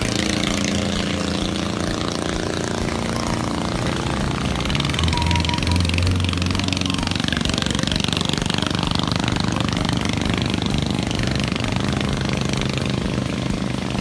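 An engine running steadily, a low drone that swells about five to seven seconds in, over a constant rushing hiss.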